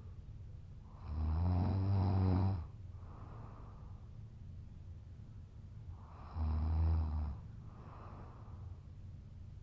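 A drunk man, passed out asleep, snoring heavily. Two loud, low, buzzing snores come about five seconds apart, each followed by a softer breath.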